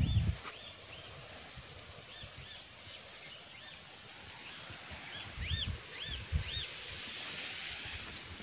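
A small bird chirping in short series of quick, high, rising-and-falling notes, about three a second, over faint outdoor hiss.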